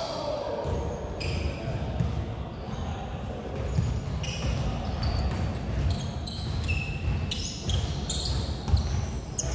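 Basketball pickup game on a hardwood gym floor: a ball bouncing in repeated dull thuds, with short high sneaker squeaks, mostly in the second half, in a large echoing hall.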